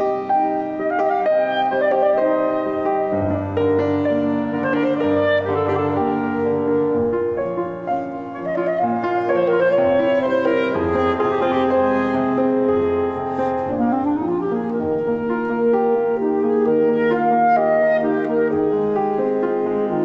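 Clarinet and Schweighofer grand piano playing together: held clarinet notes over a piano accompaniment, with a quick rising run about two-thirds of the way through.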